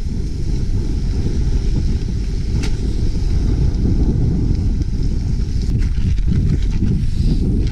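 Strong wind buffeting the microphone of a handlebar-mounted action camera on a moving bicycle: a loud, steady low rumble, with two faint ticks partway through.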